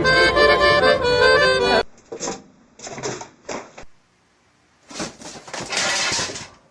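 Background music that cuts off abruptly about two seconds in. A few short scratchy noises follow, then a brief gap and a longer hissing noise.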